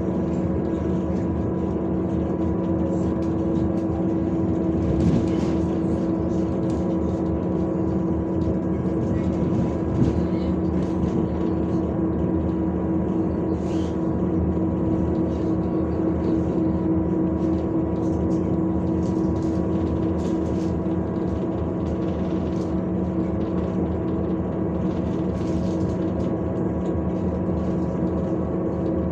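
MAZ-105 city bus heard from inside the passenger cabin while driving: a steady drone of engine and running gear with a constant humming tone, and a couple of short knocks about five and ten seconds in.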